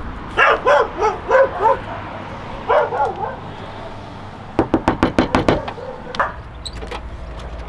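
A dog barking in quick runs of several barks. About four and a half seconds in, a fist raps rapidly on a metal entrance door, about eight quick knocks in a second.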